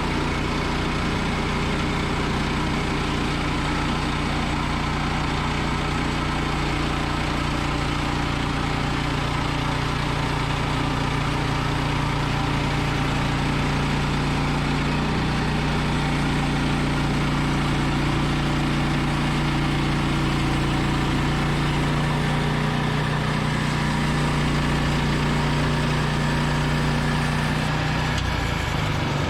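Woodland Mills portable sawmill's gas engine running steadily while its band blade saws through a log. The engine note shifts slightly about halfway through and changes near the end.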